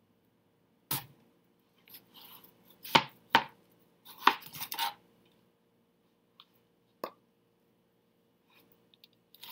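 Knife cutting through a cantaloupe, the blade knocking sharply against the board about half a dozen times, most of them in the first five seconds, with softer scraping of the rind in between. A faint steady hum lies underneath.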